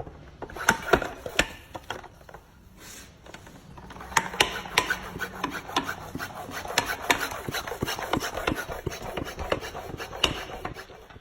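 Rapid, irregular clicks, knocks and scraping of hand tools and parts being handled during outboard motor maintenance, busiest in the second half.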